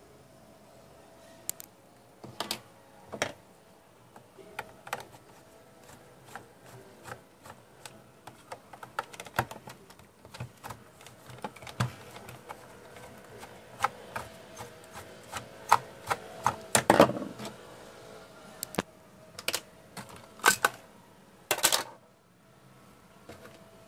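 Irregular clicks and knocks of hard plastic as a robot vacuum's underside is handled and its battery cover taken off, busiest in the second half, over a faint steady hum.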